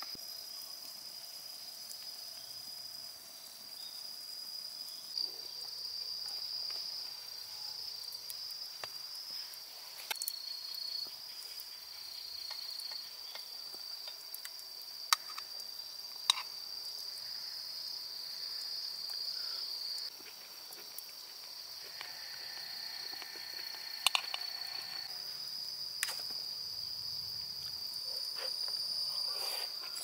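Insects trilling steadily at a high pitch, with a few sharp clicks of metal chopsticks against the aluminium mess tin.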